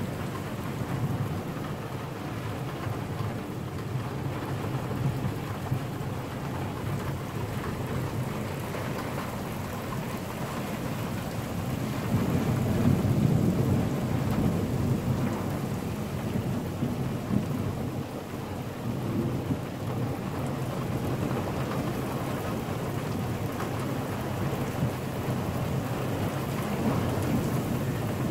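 Thunderstorm: steady rain with rolling thunder. The loudest rumble swells about twelve seconds in and dies away over a few seconds.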